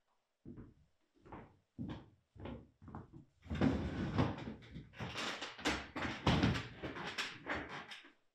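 Footsteps on a hardwood floor, about five evenly spaced steps, then a wooden dining chair dragged and shifted on the floor as a man sits down at the table.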